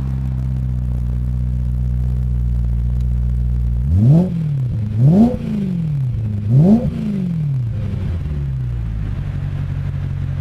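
BMW M3 cabriolet's 4.0-litre V8 through a custom stainless-steel quad-tip sport rear exhaust, idling steadily, then revved in three quick blips starting about four seconds in, each rising and dropping back, before settling again to idle.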